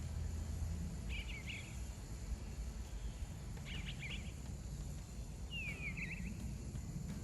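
Male eastern bluebird singing: three short, soft warbling phrases about two seconds apart, the last with falling notes, over a steady low rumble of outdoor background noise.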